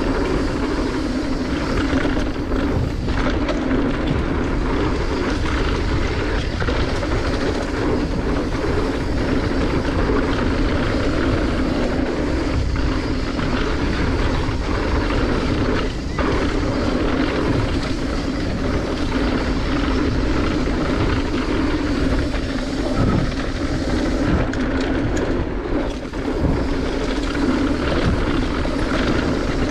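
Mountain bike riding fast down a dirt trail: steady wind rush and tyre rumble, with occasional knocks and rattles as the bike hits bumps.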